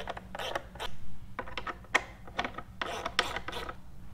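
Hand tools and metal parts being worked at the timing end of an engine: a run of short, irregular rasping clicks and rubs.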